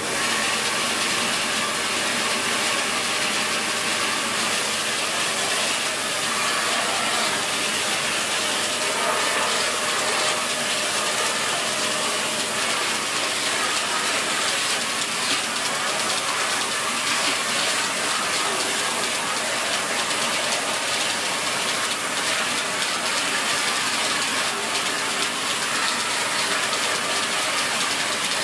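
Dyson Big Ball Animal (CY23) cylinder vacuum cleaner switched on and running steadily, a loud, even rushing of motor and suction.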